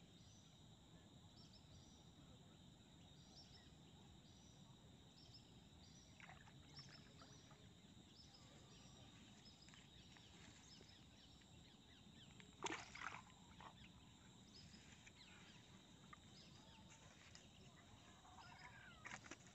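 Near silence: faint outdoor ambience with a faint high chirp repeating every half second or so, and one brief burst of noise about two-thirds of the way through.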